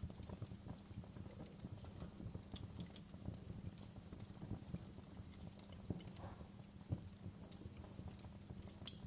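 Wood fire crackling in a fireplace: a steady low rumble of burning with irregular small pops and snaps, and one sharp pop near the end.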